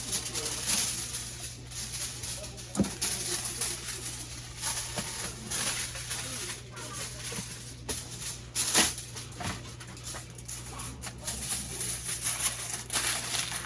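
Wood fire crackling and hissing with irregular pops, two sharper ones about three and nine seconds in, over a steady low hum.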